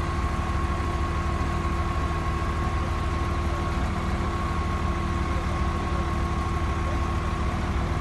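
Heavy machinery engine idling steadily, with a constant high-pitched whine above its low hum.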